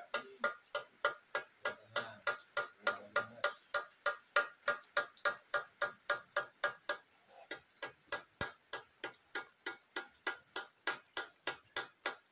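Steady, rapid hand-hammer blows on the metal of an Isuzu Panther engine block, about three a second, each with a short metallic ring, as the cylinder liners are worked.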